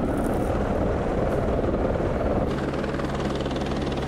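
Helicopter flying overhead, its rotor beating steadily; about two and a half seconds in, a steady low hum joins.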